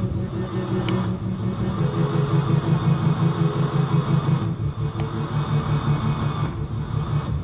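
Background music with steady low sustained notes.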